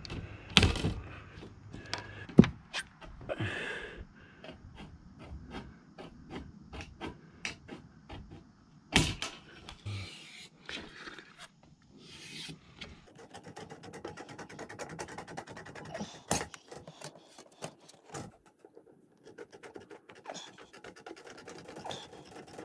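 Aviation tin snips cutting and trimming thin sheet-metal valley flashing: a run of sharp clicks and snips, with the metal scraping and rattling as it is handled.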